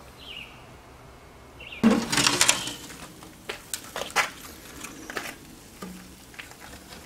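Split apple wood knocking and clattering against the metal side firebox of a barrel charcoal grill as pieces are laid on the coals: a burst of clatter about two seconds in, then scattered single knocks.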